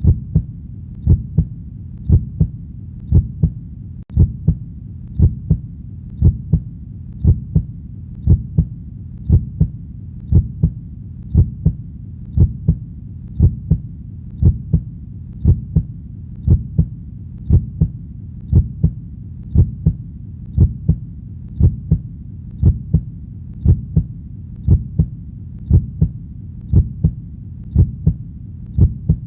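Heartbeat: steady lub-dub pairs about once a second over a low steady rumble.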